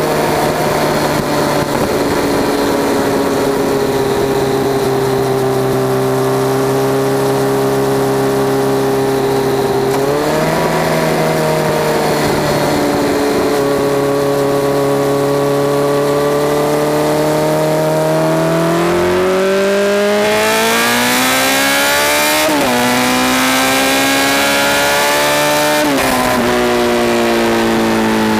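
Honda CBR1100XX Super Blackbird's 1137 cc inline-four running through a Takkoni exhaust with straight pipes in the mufflers. It holds a steady cruise with a couple of gear changes, then accelerates hard: the revs climb, drop at an upshift, climb again and drop at a second upshift near the end. A rushing wind hiss grows as the speed builds.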